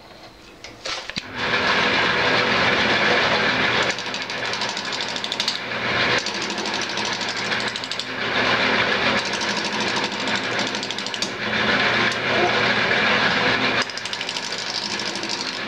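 Wood lathe running while a roughing gouge cuts a square wood blank down toward a cylinder: a loud, continuous rough cutting noise over a steady motor hum. It begins about a second in and rises and falls a little as the gouge moves along the blank.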